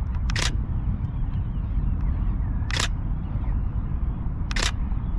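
Camera shutter firing three times, a couple of seconds apart, each a short sharp clatter, over a steady low rumble.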